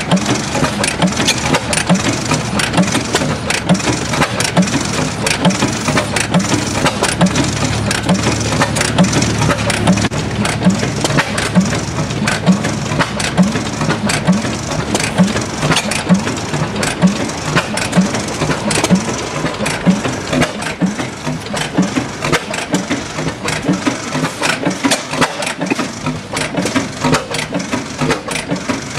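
1912 Reid 15 HP two-stroke oilfield gas engine running smoothly, beating in a steady, even rhythm.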